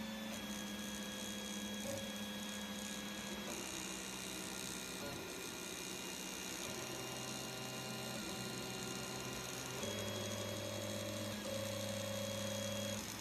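3D printer stepper motors whining in steady tones as the print head moves, the pitch jumping to a new note every second or two as the moves change speed.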